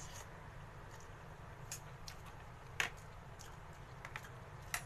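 A metal spoon and fork clinking a few times against a bowl of meatball soup and noodles, short faint clicks, the clearest about three seconds in and near the end, over a low steady hum.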